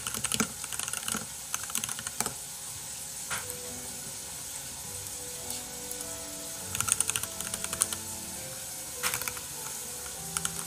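Typing on a computer keyboard: quick runs of key clicks in a few separate bursts as a search term is entered.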